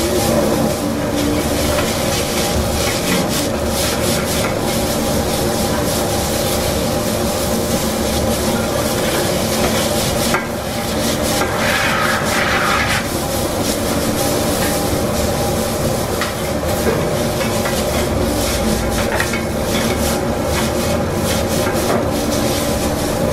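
Two metal spatulas scraping and clacking on a flat-top griddle as fried noodles are tossed, with the noodles sizzling, over a steady low hum.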